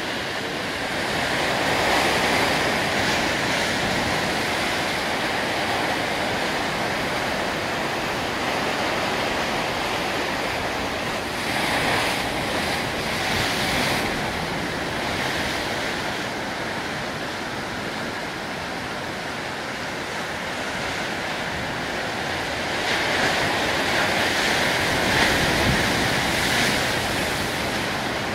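Rough sea in a heavy swell: waves surging and breaking in a steady rush, with wind. The rush swells louder a few times, about a dozen seconds in and again near the end.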